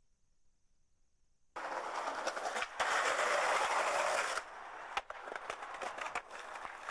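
Skateboard wheels rolling on a concrete sidewalk: a steady rolling hiss with scattered clicks. It starts suddenly about a second and a half in, is loudest for a second and a half around the middle, then eases to a lower level.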